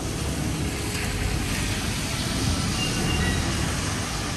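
Busy city street ambience: a steady low rumble of passing traffic, with a couple of faint, brief high tones about halfway through.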